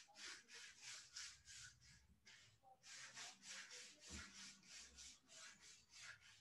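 Near silence with faint, scratchy rubbing strokes, about three or four a second.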